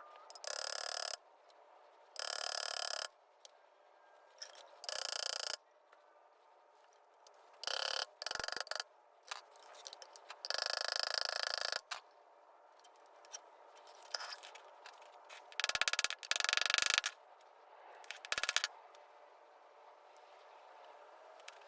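Ball peen hammer rapidly tapping the loose joint of a steel shift linkage rod resting on a floor jack, peening the joint to tighten it. It comes in about eight quick bursts of ringing metallic taps, each a second or so long.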